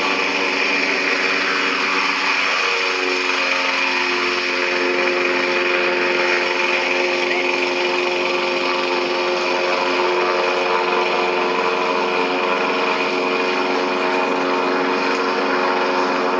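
Small engine of a propeller-driven aircart running steadily, a buzzing drone that shifts a little in pitch in the first few seconds, then holds. Heard through a small playback speaker, so it sounds thin with no bass.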